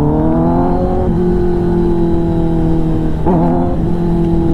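Kawasaki ZX-10R's inline four-cylinder engine through an SC-Project exhaust, pulling under acceleration with rising revs. About a second in the pitch steps down as in a gear change, and the engine then holds a steady note.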